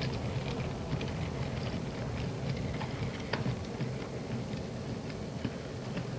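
Model cement train of hopper wagons and a brake van rolling past on the layout track: a steady low rumble with irregular light clicks from the wheels going over the rail joints.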